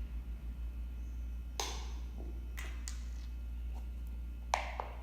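A few light taps and clicks from a glitter-glue bottle being handled and squeezed over a mixing container, with a steady low hum underneath.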